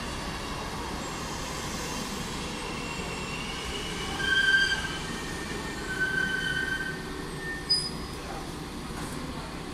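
Class 814 Regionova diesel multiple unit moving off with a steady low rumble, its wheels giving high-pitched squeals that swell about four seconds in and again about six seconds in. A short sharp click comes near the end.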